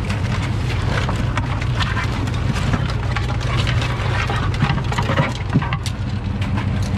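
Boat engine running steadily with a low hum, under a stream of irregular clicks and clatters as Dungeness crabs are handled and sorted, shells and legs knocking against the sorting tray.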